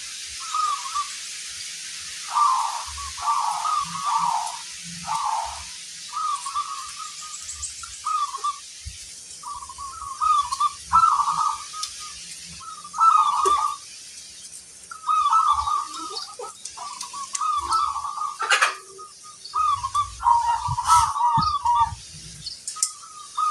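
Zebra doves (perkutut) cooing, a string of short rolling phrases repeated again and again, one bird answering another.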